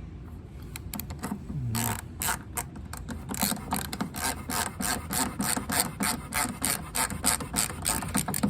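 Hand ratchet clicking as it drives in a tail-light screw: a few scattered clicks, then from about three seconds in an even run of about four clicks a second.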